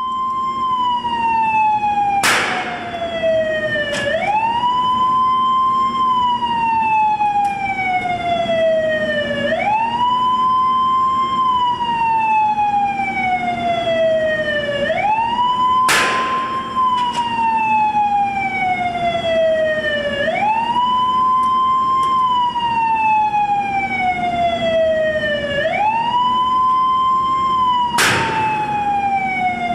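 Winchester industrial furnace-tapping gun firing zinc slugs into a furnace tap block: sharp bangs at intervals, three of them loud. Under them a wailing siren rises quickly and falls slowly, repeating about every five and a half seconds.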